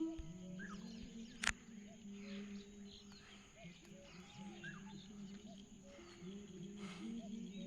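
Forest ambience: scattered short bird chirps over a steady high insect whine, with low steady tones underneath. There is a single sharp click about a second and a half in.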